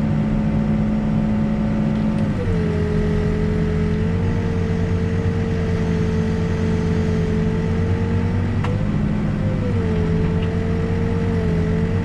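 New Holland backhoe's diesel engine running steadily, heard from the operator's cab; its note drops slightly about two seconds in and again near ten seconds as the boom and bucket are worked.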